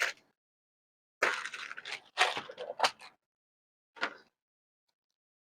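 Plastic clicks and rustling from a wire-connector kit being handled as crimp ends are picked out, in a few short bursts: two longer ones in the first half and a brief one about four seconds in.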